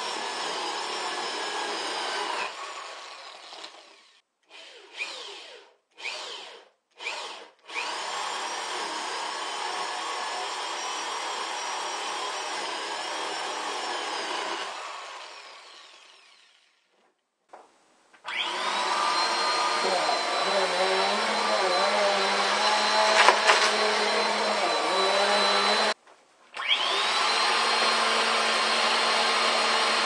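Corded electric drill with a 3/4-inch bit boring holes through wooden 2x2s. It runs in long stretches that spin down, with a few short trigger bursts between them. About 18 seconds in, a vacuum cleaner starts up with a rising whine and runs steadily and louder, cutting out briefly and restarting near the end.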